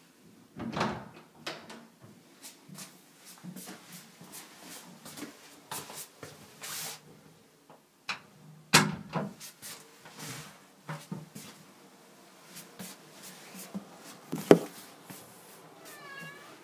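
Doors of a double-door entry opening and shutting, with a series of latch clicks and knocks, then a cat meowing once near the end.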